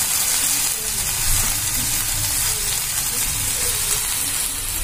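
Chicken pieces frying in olive oil on a nonstick grill pan, a steady sizzle.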